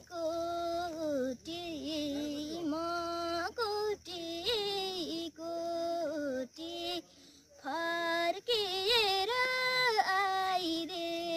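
A young girl singing a Nepali song solo and unaccompanied, in long held notes with ornamented turns between them. There is a short breath break about seven seconds in.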